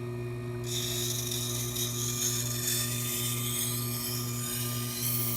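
Leatherworking head knife's edge ground against a turning wet sharpening stone wheel in one pass: a high, hissing scrape that starts under a second in, over the steady hum of the wheel's electric motor.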